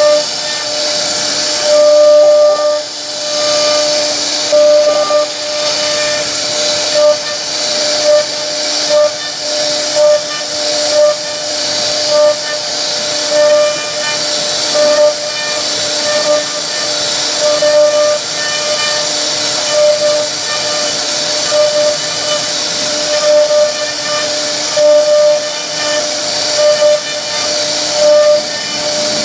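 CNC router spindle cutting wood: a high, hissing whine with a pitched tone that swells and fades about once a second as the bit works through the panel.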